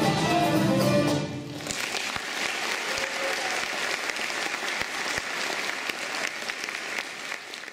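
Music ends about a second in, and an audience claps steadily for the rest of the time.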